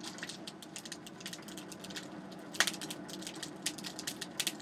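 Wood and coal fire in a coal forge crackling, with irregular sharp pops, the loudest about two and a half seconds in, over a steady low whir of moving air.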